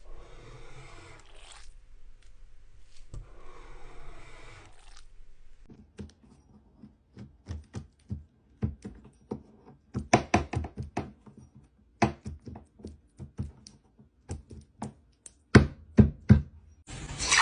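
Two scraping or tearing sounds, then a run of sharp knocks and taps in quick, irregular clusters, with a few louder ones near the end.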